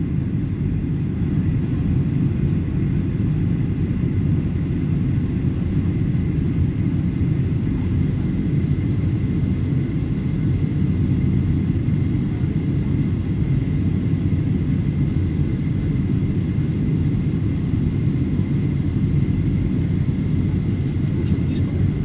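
Steady jet airliner cabin noise during the descent to land: a low rumble of the turbofan engines and airflow, with a faint high steady tone running through it.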